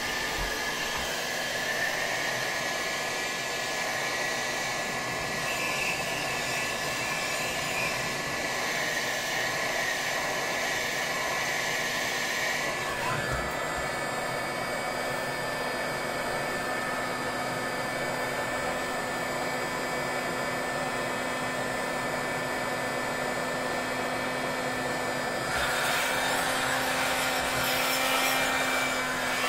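Heat gun running at 650 °C, blowing hot air steadily into a liquid-nitrogen overclocking pot to warm it back up from full pot. A little before halfway through, its tone changes as it is moved into the second pot.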